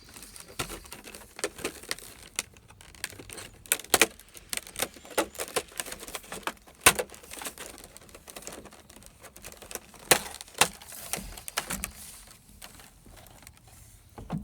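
A package being handled and opened by hand: irregular sharp clicks and snaps with crinkling, the loudest snaps about 4, 7 and 10 seconds in.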